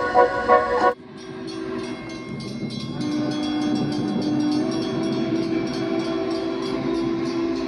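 Organ music for about the first second, cut off abruptly. Then the sound of a passenger train at a grade crossing, played back through a TV speaker: steady held tones that shift in pitch twice, over a regular light ticking.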